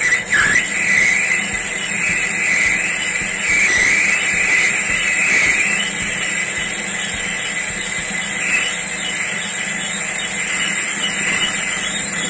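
Metal lathe facing the inside of a rusty water pump volute casing: the cutting tool scrapes the spinning metal with a steady high-pitched hiss over the low hum of the lathe. This is a truing cut that flattens the damaged sealing face of the volute.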